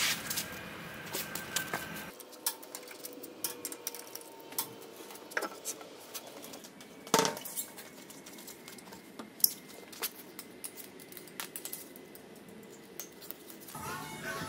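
Scattered light metallic clinks and taps of lug nuts, sockets and hand tools as car wheels are fitted onto their hubs, with a couple of louder knocks about seven and nine seconds in.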